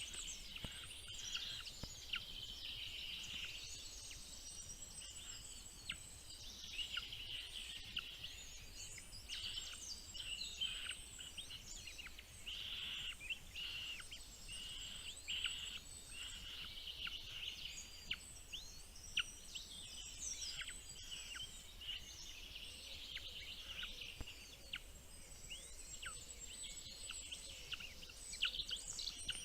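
Small birds chirping constantly: many short, high chirps and quick falling notes overlapping, with no pause.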